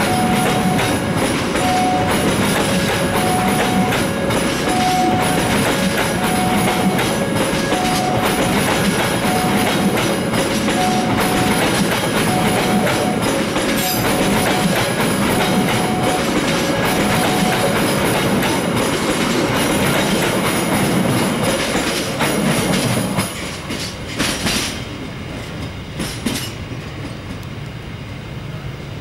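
Passenger train coaches running past at speed, their wheels clattering over the rail joints in a loud, continuous rush. About 23 seconds in the noise drops sharply as the last coach passes and the train moves away. Behind it, until about 18 seconds in, a faint two-note tone repeats.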